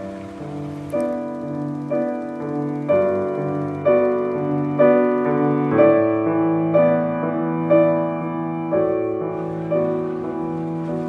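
Slow, gentle piano music, a chord struck about once a second and left to fade, swelling toward the middle and softening near the end.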